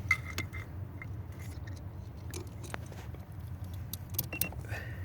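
Scattered small clicks and rattles of hands handling parts and wiring while an ESL bypass plug is fitted to a Mercedes steering-lock connector, over a low steady hum.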